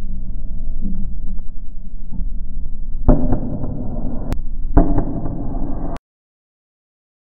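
Tank's engine running with a low rumble and a faint steady hum, then about three seconds in a sudden loud blast as a rocket-propelled grenade is fired at the tank from the building, followed a second and a half later by a second sharp bang. The grenade misses. The sound cuts off to silence about a second before the end.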